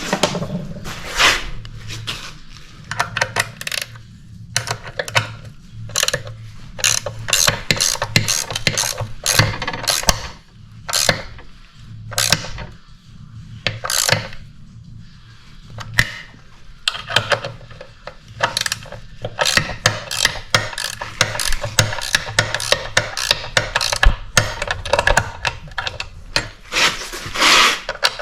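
Ratchet wrench clicking in quick runs of strokes with short pauses, tightening the bolts that hold the snowblower's chain-tensioning sprocket. A steady low hum underneath.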